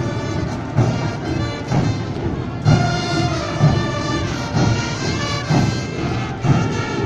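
Brass band music playing a march, with a steady drum beat about once a second.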